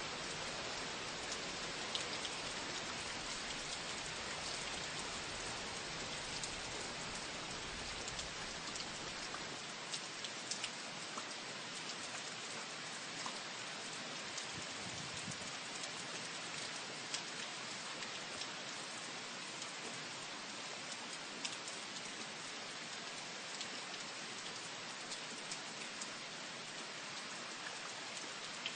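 Hurricane rain falling steadily, with many small sharp drop hits scattered through it.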